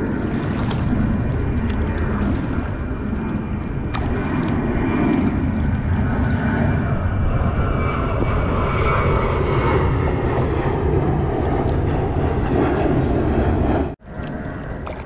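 An airplane passing overhead: a loud, steady rumble whose pitch slowly shifts as it goes over. It breaks off abruptly near the end.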